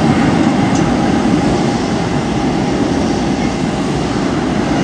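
Fokker 70 jet airliner climbing out after takeoff, its two rear-mounted Rolls-Royce Tay turbofans giving a steady low rumble.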